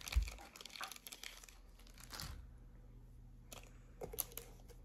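Faint crinkling of a clear plastic card sleeve being handled, in quick crackles that die away about halfway through, with a dull bump near the start and a few soft clicks later.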